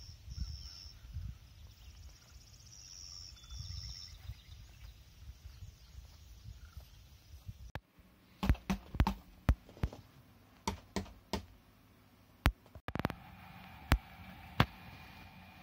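Wind buffeting the microphone, with a bird chirping in short repeated phrases. About eight seconds in this gives way to a dozen or so sharp hand taps on the rubber pads of a video-game drum controller, irregularly spaced.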